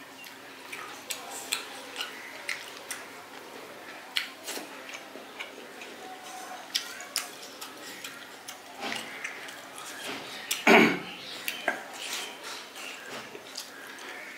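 A person eating close to the microphone: scattered sharp mouth clicks and chewing sounds with light clinks of food and plate, and one louder mouth sound near the end.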